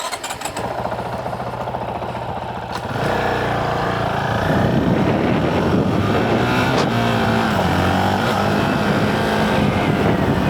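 Motorcycle engine pulling away and getting louder about three seconds in, its pitch rising and stepping through gear changes, with road wind rushing over an open-visor helmet, picked up by a mic clipped at the rider's chin.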